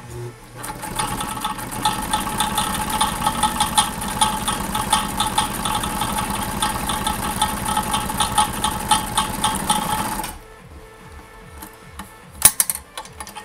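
Kenmore 148.1215 sewing machine running at a steady speed, stitching two layers of heavy belt leather with a size 12 needle. The machine gets through it, then stops abruptly about ten seconds in, and a sharp click follows near the end.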